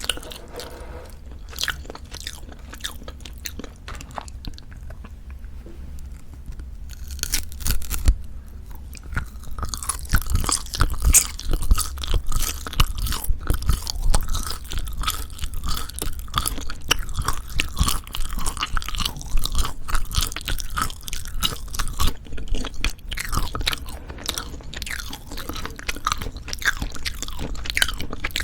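Close-miked chewing of Jeju black pork jerky: sparse, quieter chews for the first several seconds, a sharp snap about eight seconds in, then dense, crackly chewing for the rest.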